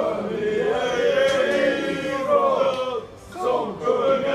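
Football supporters chanting in unison, a sustained sung chant in mostly male voices. It drops briefly about three seconds in, then starts again.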